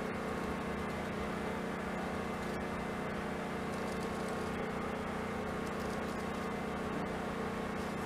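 Steady low hum of workshop background noise with a few faint steady tones and no distinct tool sounds.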